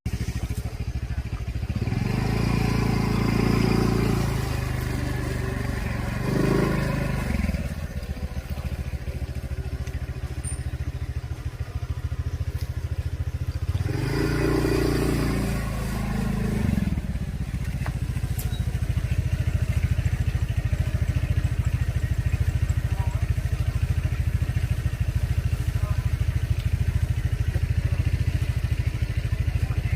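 A small engine running with a fast, even pulse. It speeds up twice in the first half, then holds steady.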